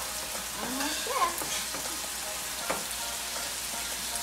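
Lo mein noodles frying in oil and teriyaki on an electric griddle: a steady sizzle, with spatulas scraping and tapping against the griddle a few times.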